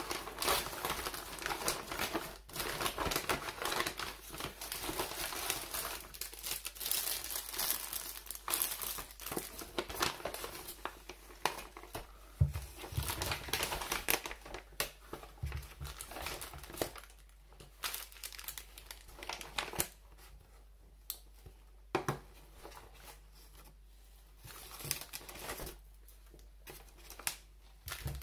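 Kraft-paper grocery bag and packaging rustling and crinkling as the bag is opened and groceries are lifted out, busy for the first half and sparser after. A few dull knocks come as items are set down on the table.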